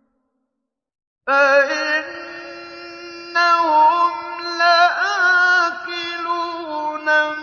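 A male reciter's voice chanting the Quran in the melodic mujawwad style. After about a second of silence, a long, ornamented line starts, with held notes that waver and turn in pitch.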